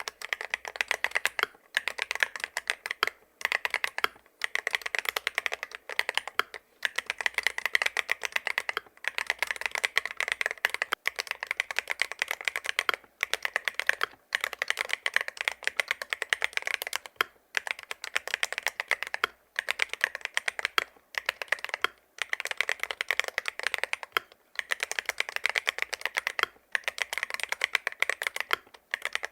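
Fast typing on the IROK MG75 Max, a full-aluminium 75% keyboard with OKT Qinghui magnetic switches and polycarbonate keycaps. The keystrokes clack in dense runs, with brief pauses every second or two.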